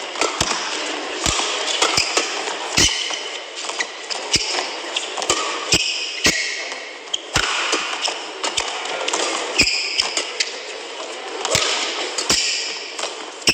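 Badminton rally: rackets striking the shuttlecock back and forth, a sharp hit about once a second, over the steady murmur of the crowd in a large arena.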